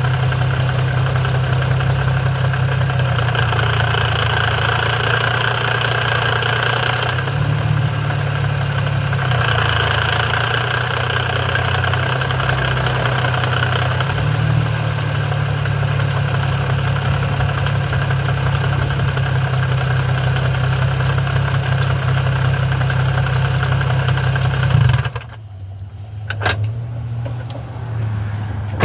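Infiniti G35 coupe's 3.5-litre V6 idling with its six-speed manual transmission out of gear, making a knocking noise from the gearbox that the owner says goes away once it is put in gear. A harsher, higher layer swells twice in the first half, and the sound drops off suddenly near the end, followed by a couple of clicks.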